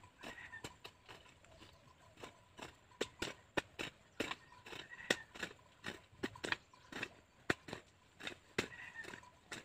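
Short-handled hoe chopping into dry, loose soil: a run of sharp strikes, about two or three a second, sparse at first and closer together from about three seconds in.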